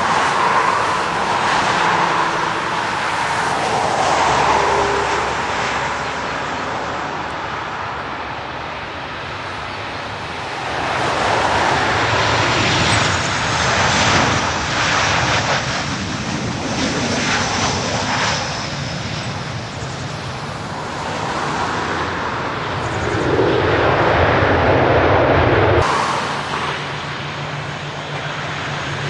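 Airliner engines running as a plane passes on its landing approach, a steady rumble that swells and fades, with a high whine in the middle.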